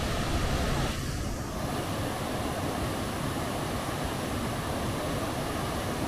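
Large waterfall's falling water, a steady rushing noise that dips slightly in level about a second in.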